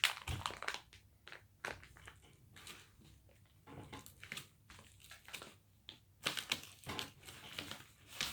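Hands kneading sticky slime with flour worked into it: irregular small clicks and crackles as the dough is squeezed and pulled apart.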